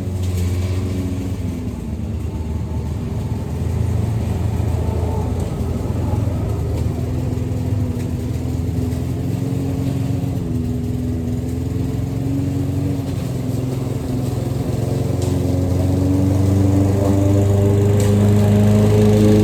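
Gas lawn mower engine running steadily while mowing, its pitch wavering and then climbing and getting louder toward the end.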